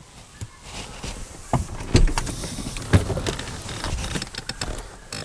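Vehicle rattling and knocking, an irregular run of clatters and bumps with two heavy thuds about two and three seconds in.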